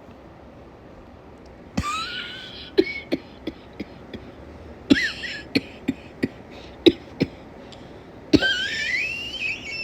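A woman coughing with a summer cold: three longer, harsh coughing fits with a rising wheezy pitch, about two seconds in, about five seconds in and near the end, with short single hacks between them. She calls it a nasty cough and fears it may be bronchitis.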